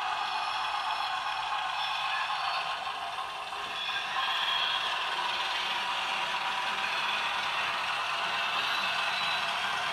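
Running sound of a Brawa H0 model of the DR class 100 Kö II diesel shunter, played by its ESU LokSound 4.0 sound decoder through the model's small speaker: a steady mechanical clatter with little bass, dipping briefly and coming back louder about four seconds in.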